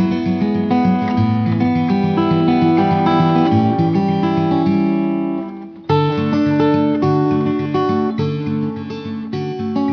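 Background music led by acoustic guitar, strummed and picked. It dips briefly and restarts abruptly about six seconds in.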